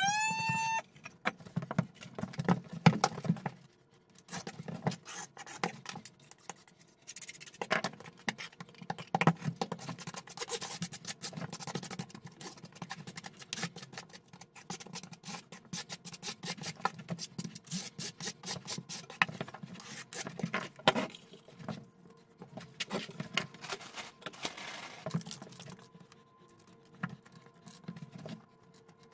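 Notched steel trowel scraping and combing thinset mortar over the floor membrane in many quick, irregular strokes, with knocks and clatter of tile and tools. A brief rising whine sounds right at the start.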